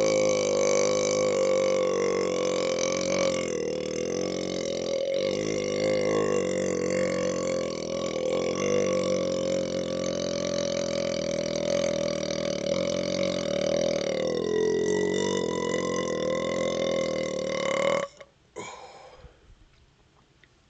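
A man's very long, unbroken belch, brought on by chugging A&W root beer, held at a steady pitch for about eighteen seconds. Near the end it dips briefly in pitch, then cuts off suddenly.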